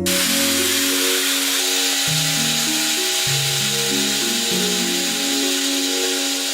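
A power tool running steadily, a loud even hiss that starts abruptly, over background music.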